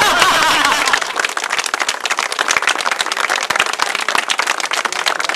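A small crowd clapping, with some voices cheering in the first second, then steady fast clapping.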